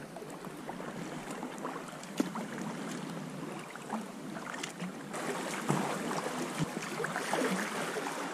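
Water lapping and splashing around a sea kayak as it is paddled on a calm sea, with many small drips and splashes from the paddle.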